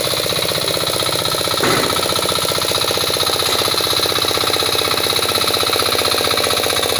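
Hand tractor's single-cylinder engine running steadily with a fast, even beat while it harrows a flooded rice paddy into mud.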